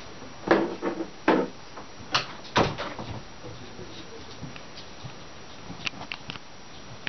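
A few sudden knocks and thumps in the first three seconds, the heaviest about two and a half seconds in, then a few faint clicks near the end.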